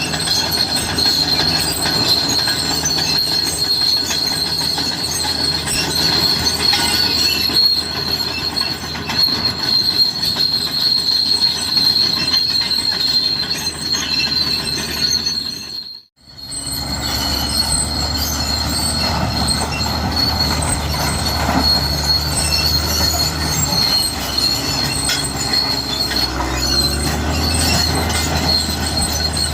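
Cat D6R crawler bulldozer at work, its steel tracks squealing and clanking over a steady high squeal and the diesel engine's low hum. The sound cuts out abruptly for a moment about halfway through, then returns with the engine hum stronger.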